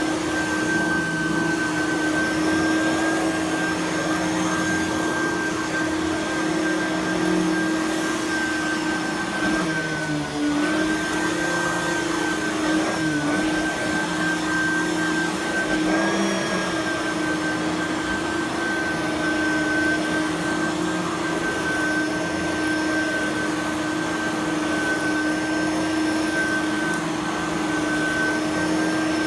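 Simplicity Freedom lightweight direct-air upright vacuum running steadily, a constant motor hum and whine. The pitch dips briefly about ten and thirteen seconds in.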